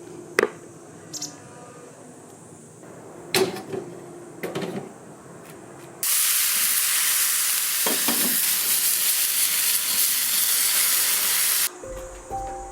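A few light knocks and clatters, then a loud, steady sizzling hiss that starts suddenly about six seconds in and cuts off abruptly near the end.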